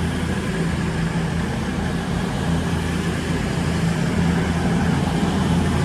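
Diesel engines of a CrossCountry Class 220 Voyager train running with a steady low hum, growing slightly louder.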